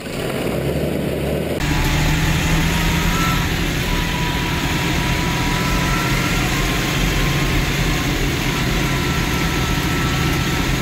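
A tractor engine running steadily while the tractor drives along, heard from the driver's seat with a rush of air noise over it. For the first second and a half a different engine idles, then the sound cuts over abruptly.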